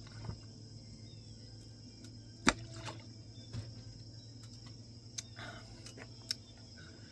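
Quiet room tone: a steady low hum and a faint, steady high-pitched whine, broken by one sharp click about two and a half seconds in and a couple of softer clicks near the end.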